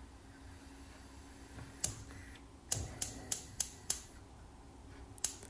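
Sharp clicks over a faint low hum: a single click, then five in quick even succession at about three a second, then one more near the end.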